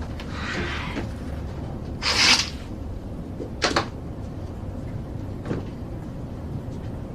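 Steady low hum of an airliner cabin with a few short handling noises: a soft rustle near the start, a louder swish about two seconds in, and a sharp click a little before four seconds.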